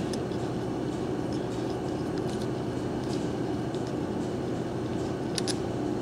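Steady low hum of a workshop, with a few faint light clicks as the plastic fuel-line fitting jig is handled and unscrewed.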